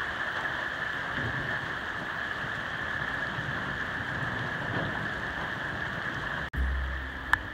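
Heavy rain pouring onto a flooded street, a steady even hiss. Near the end it cuts off abruptly and a low rumble comes in.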